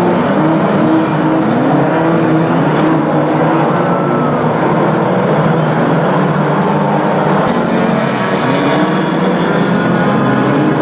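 Engines of several banger racing cars running and revving on a shale track, with overlapping engine notes rising and falling.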